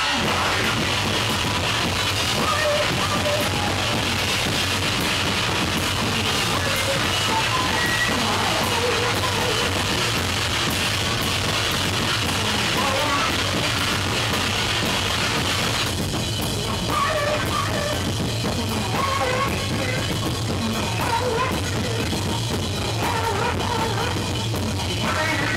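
Live noise rock from a bass-and-drums duo: a drum kit played hard and fast under a heavily distorted bass guitar, loud and dense, with the sound thinning and pulsing about two-thirds of the way through.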